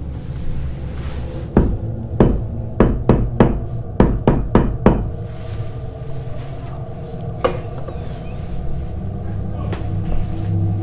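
Knocking: a run of about nine sharp knocks, irregular and a fraction of a second apart, from about one and a half to five seconds in, then a single knock a few seconds later.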